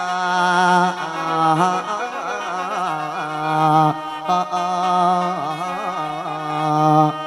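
Mor lam music: a singer holds long, wavering, ornamented notes over a steady khaen drone.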